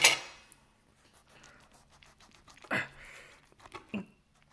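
Short breathy exhales close to the microphone. The first, at the very start, is sharp and the loudest, another comes about three seconds in with a falling voiced edge, and a brief one follows near the end.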